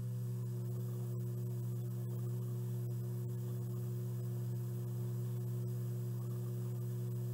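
A steady low hum with no other sound standing out.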